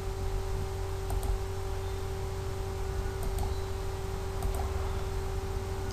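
A few faint computer mouse clicks, each a quick pair of ticks, over a steady low electrical hum.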